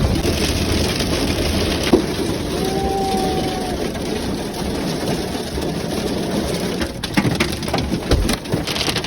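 Heavy hail pelting down in a dense, steady clatter, with a few sharper, louder hits standing out.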